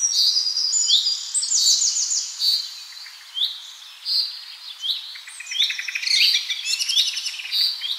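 Birdsong ambience: several small birds chirping and trilling in short, high calls, many of them sliding downward in pitch and overlapping one another.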